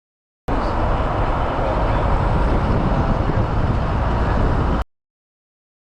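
Loud, steady road and wind noise from a moving vehicle. It cuts in about half a second in and cuts off abruptly shortly before the end.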